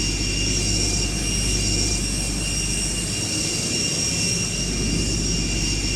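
Jet engine sound effect: a steady running rumble with high, unchanging whining tones above it.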